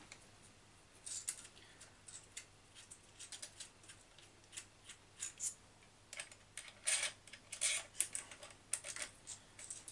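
Faint, irregular clicks and taps of small metal suspension parts (arms, pivot balls, screws) being handled and fitted on a large RC monster truck's axle, with a few louder clicks about seven to eight seconds in.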